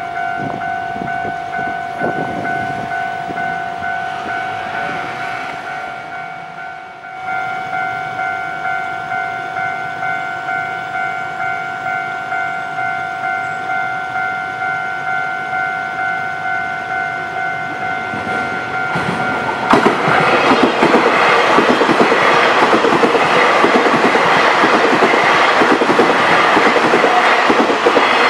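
Level-crossing warning bell ringing in an even, repeating beat. About two-thirds of the way in, an electric multiple-unit train passes close by, and its louder wheel and running noise drowns the bell.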